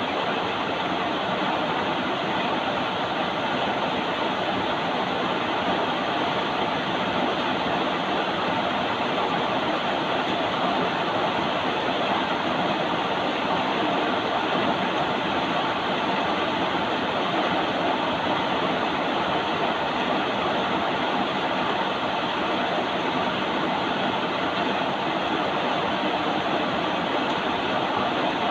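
Steady rain noise: an even, unbroken hiss.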